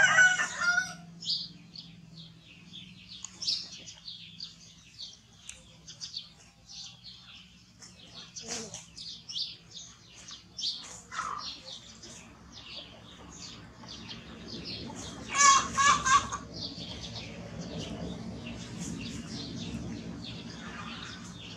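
Small birds chirping busily, many short high chirps one after another. Two brief louder calls stand out, one at the very start and one about three-quarters of the way through.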